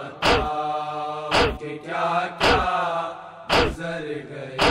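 Voices chanting an Urdu noha, a Muharram mourning lament, in long drawn-out phrases. A sharp beat about once a second keeps time under the chant.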